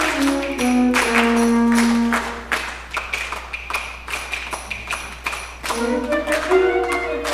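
School concert band playing: held brass and woodwind chords that thin out about two and a half seconds in to a quieter passage of light taps and one high held note, before the full band comes back in near the end.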